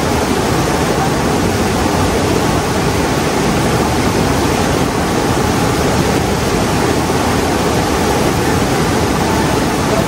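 River water rushing fast over and around rocks, a loud, steady roar. The river is running high with water let out from an opened dam.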